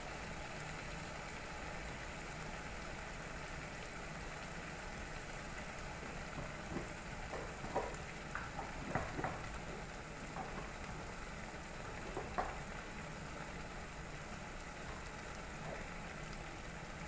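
Onion, garlic and ginger paste sizzling steadily in hot oil in a pan. A few light clicks and knocks come in the middle, as it is stirred.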